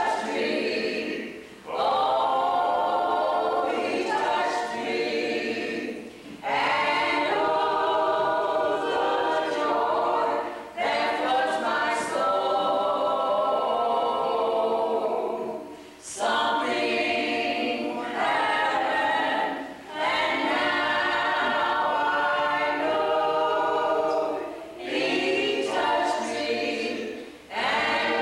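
A small group of men's and women's voices singing together unaccompanied, in long held phrases with short breaks for breath between lines.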